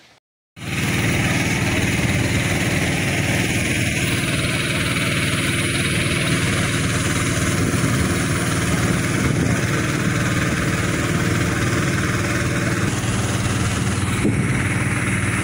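Small boat's motor running steadily under way, starting abruptly about half a second in.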